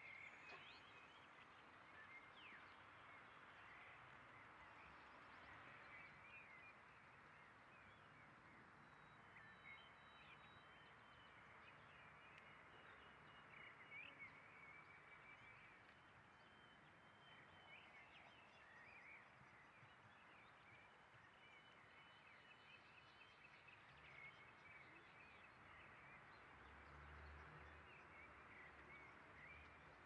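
Faint daytime park ambience: small songbirds chirping and whistling in short calls scattered throughout, over a steady background hiss.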